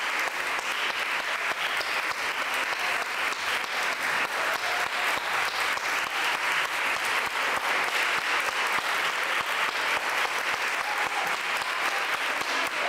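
Audience applauding steadily, many hands clapping at an even level.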